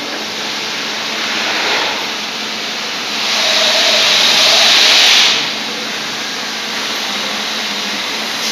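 Three-phase industrial vacuum cleaner with an induction motor running with a steady rushing hiss of air; about three seconds in the rush grows louder and hissier for about two seconds, then drops back to the steady level.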